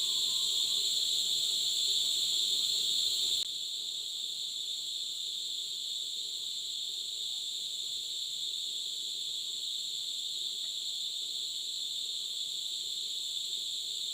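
Cicadas buzzing in a steady, high-pitched drone that drops in loudness about three and a half seconds in, then carries on more softly.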